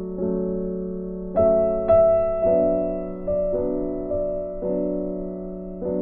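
Background music on piano: soft chords and notes struck one after another, each fading away before the next.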